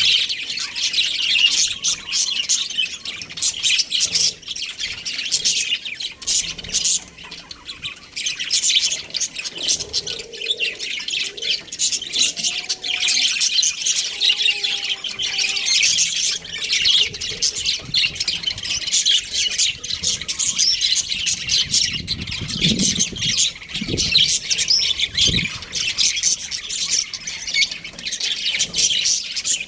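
Budgerigars chirping and chattering in a continuous stream of short, rapid calls, with three dull low thumps about three-quarters of the way through.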